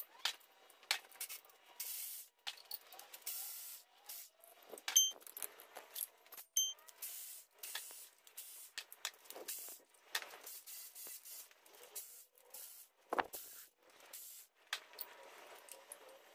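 Ratchet and socket on a long extension backing out intake manifold bolts: repeated short bursts of ratchet clicking with the metallic clink of tools and bolts, and a single heavier knock late on.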